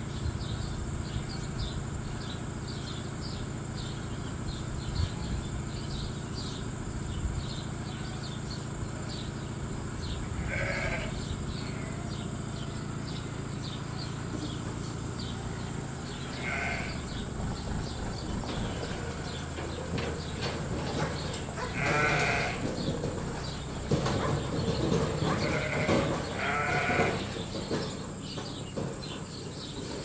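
Dorset sheep bleating now and then: about five separate calls, spaced out at first and coming closer together in the last few seconds.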